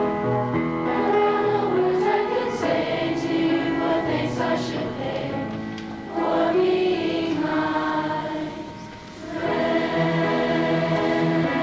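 Mixed high school choir singing held, sustained notes with grand piano accompaniment. The sound thins briefly about six seconds in and again just before nine seconds, between phrases.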